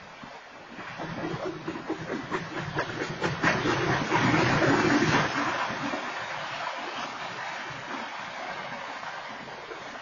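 Freight train cars rolling past, the wheels clattering and clicking over the rails with a steady rumble and hiss. It swells to its loudest about four to five seconds in, then settles to a quieter steady rolling noise.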